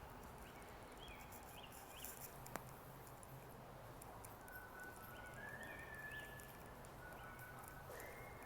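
Birds chirping faintly, short repeated calls and a few longer whistled notes, over a low steady hum, with one sharp click about two and a half seconds in.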